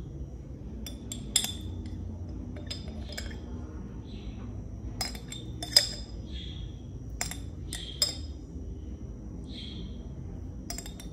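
Metal teaspoon clinking against the rim and inside of a glass jam jar while scooping out cherry jam: about nine light, sharp clinks at uneven intervals, the loudest a little before the middle.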